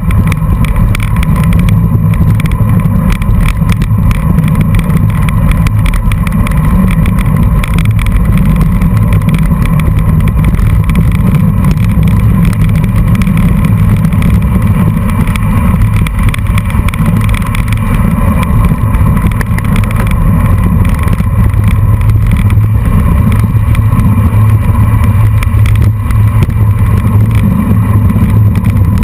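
Loud, steady wind rumble on a bicycle-mounted camera's microphone at riding speed, mixed with road bike tyres rolling on a dirt road.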